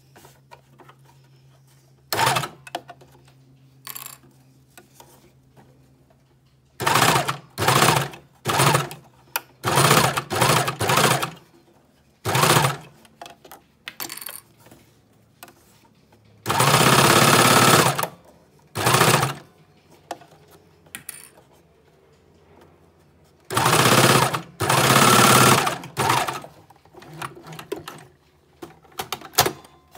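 Cover stitch machine top-stitching an elastic neck binding, running in stop-start bursts: many short runs under a second, one longer run past the middle and a couple of seconds of near-steady stitching later on.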